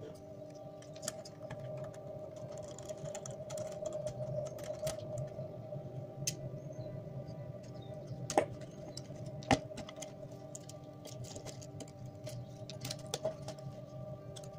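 Small irregular clicks and taps of plastic and metal parts as a camcorder's circuit boards and tape mechanism are handled and worked with a small screwdriver, with two sharper clicks a little past the middle. A steady hum runs underneath.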